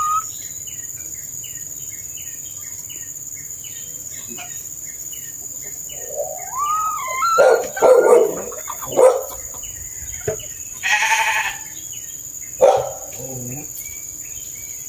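Sheep bleating: several loud calls in the second half, one of them long and drawn out. Before the calls start, a small bird chirps over and over.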